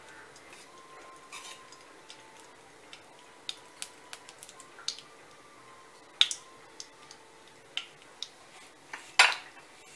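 A metal spoon clinking against a nonstick kadai while a lump of ghee crackles as it melts in the hot pan: scattered sharp clicks and small pops, the loudest two a little past the middle and near the end.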